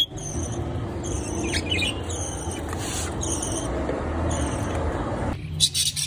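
Budgerigars chirping, short high chirps scattered over a few seconds, over a steady low rumble.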